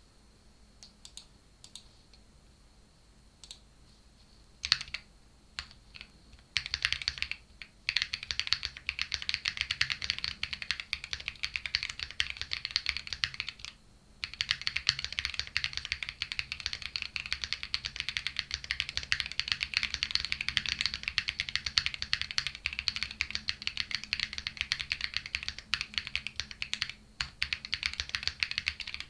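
Luminkey65 gasket-mount mechanical keyboard with Clackbits switches on an FR4 plate and Cherry-profile PBT keycaps: a few separate key presses, one much louder, then fast continuous typing from about six seconds in, with two brief pauses. The sound is crisp and clacky.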